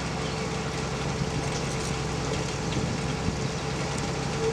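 Boat engine running steadily, heard from on board: a constant low rumble with a steady hum over the hiss of the passing water.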